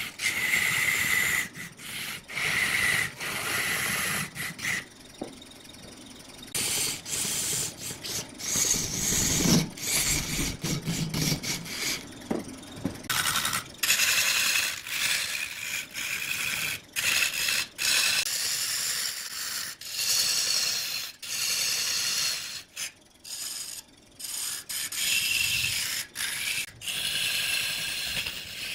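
A turning tool cutting into a spinning block of wood on a wood lathe: a scraping, shaving noise in a series of short passes that start and stop abruptly.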